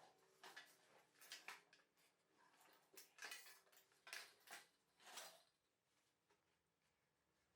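Faint, scattered clicks and short scrapes of small metal parts or tools being handled, about a dozen in the first five seconds, then stopping.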